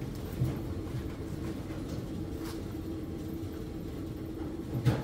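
A steady low mechanical hum, with a few faint knocks.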